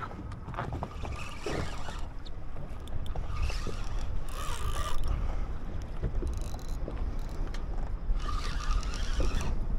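Motorboat under way on the water: a steady low rumble with bursts of rushing, splashing water noise every few seconds.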